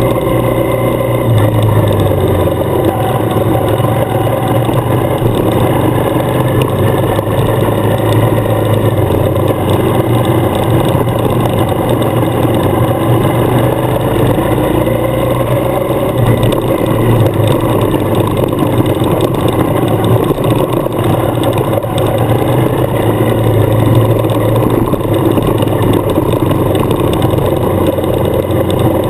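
Adventure motorcycle engine running steadily under way on a gravel road, its note rising and falling a little with the throttle, over a constant rush of road noise.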